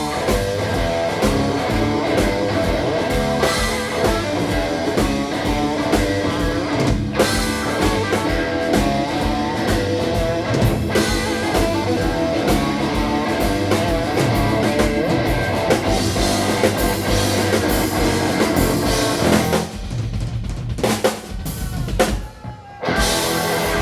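Live rock band playing an instrumental passage: drum kit keeping a steady beat under electric guitar and bass. Near the end the band breaks off to a few scattered hits and comes back in.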